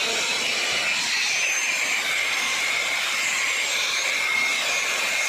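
Makita 1900B electric hand planer running steadily at full speed, a loud high-pitched whine with a hiss of air.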